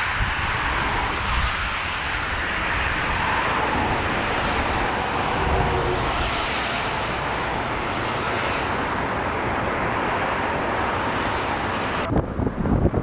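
Steady roar of an airliner landing in a strong crosswind. About a second before the end it gives way to gusty wind buffeting the microphone.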